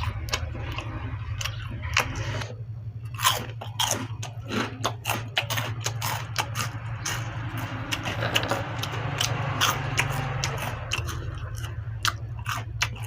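A person chewing and biting food close to the microphone, with many short crisp crunches, over a steady low hum.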